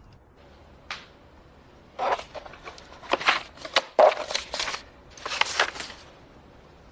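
Sheets of paper rustling and being handled at a desk, in several crackly bursts from about two seconds in, after a single light click near the start.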